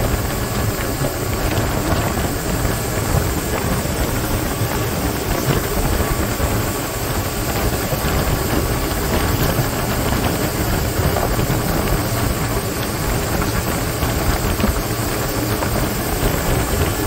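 Twin outboard motors driving a boat at speed: a steady engine drone mixed with the rush of wind and water from the wake.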